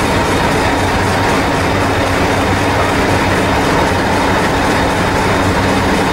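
Diesel-electric multiple unit 1001 standing at the platform with its engine idling: a steady low drone with a thin constant whine above it.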